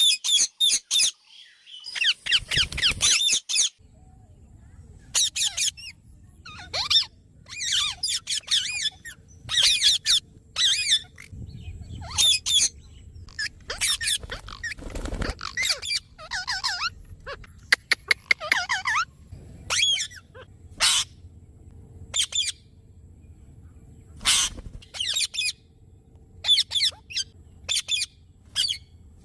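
Parrot calling in a long run of short, high squawks and chatter, one every second or two, with wavering pitch.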